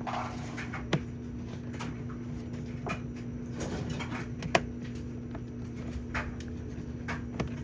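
Scattered light clicks and taps of hands working a block-off plug into a hole in a car's firewall, with two sharper knocks about one second and four and a half seconds in, over a steady low hum.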